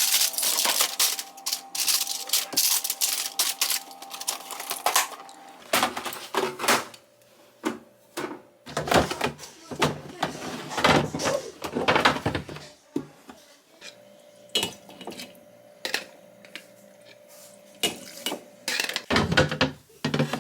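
Dishes and kitchen containers being handled: rapid clicking and clattering for about the first five seconds, then irregular knocks and clinks as items are picked up and set down.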